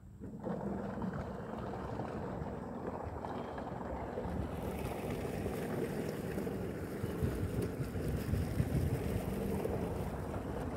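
Wind rushing and buffeting on the microphone, coming in suddenly just after the start and turning brighter about halfway through.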